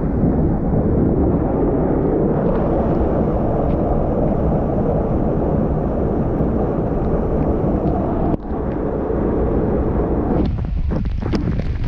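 Steady rush of a small jungle waterfall pouring into a pool, loud and weighted toward the low end. It breaks off briefly about eight seconds in, and near the end the rush thins into a choppier, crackling noise.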